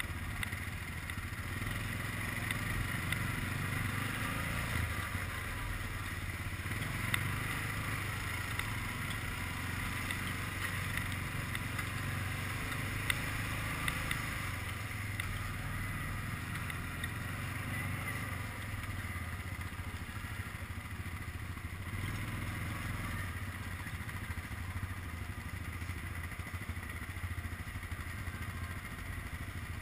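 Quad bike (ATV) engine running steadily at cruising speed while riding on a snowy road, with a few brief clicks and knocks from the machine.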